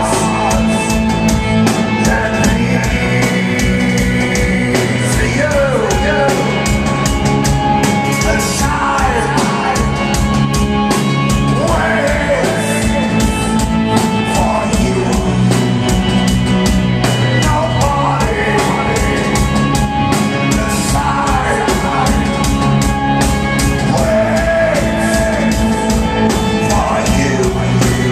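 A rock band playing live: sung lead vocals over electric guitars and a drum kit with steady, dense drum hits, recorded loud from within the audience.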